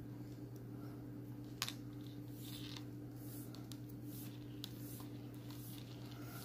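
Faint rustling and small clicks of hands lacing a leather keychain, drawing the lace and needle through the punched holes, with one sharper click about one and a half seconds in. A steady low hum runs underneath.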